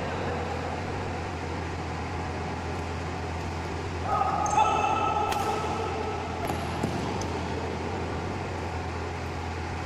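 Indoor badminton rally over a steady hum of the hall, with sharp racket strikes on the shuttlecock about five and seven seconds in. A louder held tone starts about four seconds in and lasts about two seconds.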